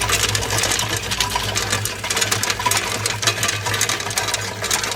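Tube ice machine running during ice harvest: a steady low hum under a dense, fast clatter of ice tubes coming out of the machine.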